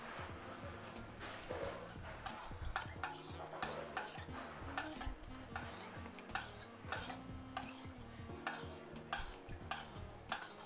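Wire whisk clinking and scraping against a stainless steel mixing bowl while lime mayonnaise is whisked: a quick, irregular run of metal-on-metal strokes that starts about two seconds in.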